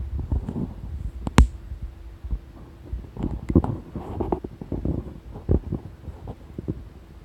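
A person's stomach gurgling and rumbling in irregular bursts, heard up close. About a second and a half in there is one sharp click.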